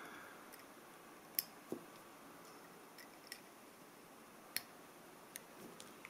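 Flush side cutters snipping off component leads: several faint, sharp clicks spaced a second or so apart.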